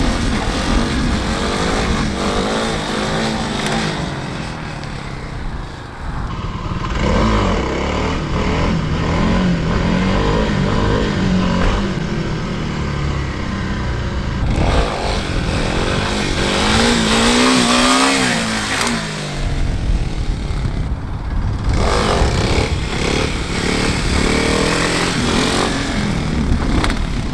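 Dirt bike engine revving up and falling back again and again while it is ridden on its back wheel.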